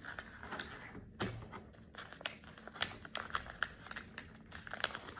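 A sheet of paper being folded and creased by hand into a paper airplane: a run of short, crisp crackles and rustles.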